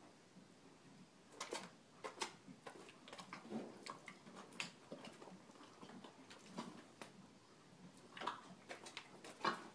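A horse moving its head in a stall, making scattered soft knocks and clicks, about ten over several seconds, with the loudest one near the end.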